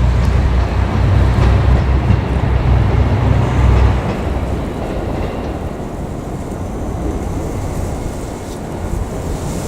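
KiHa 200 diesel railcar passing, its low engine rumble loud until about four seconds in, then dropping away suddenly, leaving a quieter, steady rushing noise.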